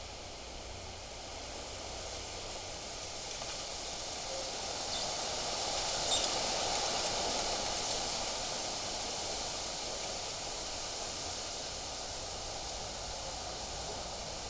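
Wind gusting through trees and rustling leaves, with a low rumble of wind on the microphone. The gust builds to its strongest about halfway through, then slowly eases off.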